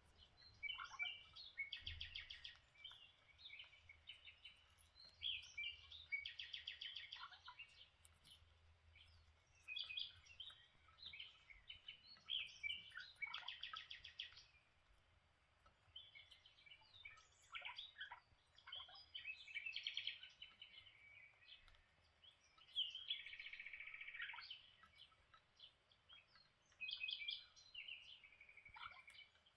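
Lineolated parakeets chirping and chattering: bursts of quick, rapid-fire chirps that come every few seconds, with short quiet gaps between them.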